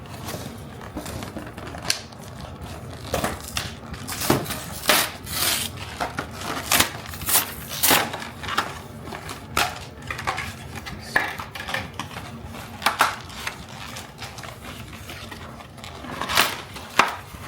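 Plastic toy packaging being opened and handled: irregular crinkling and crackling of plastic wrap, with clicks and taps of small hard plastic parts.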